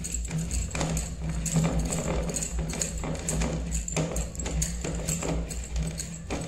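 A bar of glycerin soap (Pears) being grated on a stainless-steel grater: repeated rasping scrapes at about two to three strokes a second, over a steady low hum.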